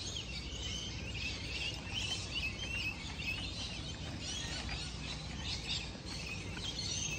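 Many birds calling at once in the trees, a dense chorus of overlapping chirps and whistles, over a steady low background rumble.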